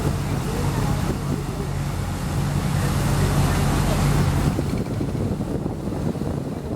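Boat engine running with a steady low drone, over wind buffeting the microphone and the rush of water; the engine drone fades about four and a half seconds in, leaving the wind and water.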